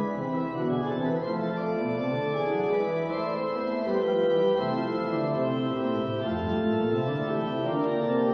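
Organ music: slow sustained chords moving from note to note.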